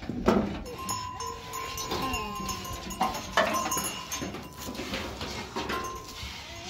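Goats bleating as they crowd around a feed pan, with a few sharp knocks and scrapes as the pan is handled and feed is scooped.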